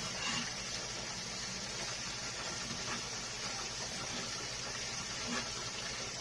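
Steady background hiss and hum, with a few faint taps of a cleaver slicing raw chicken breast on a plastic cutting board.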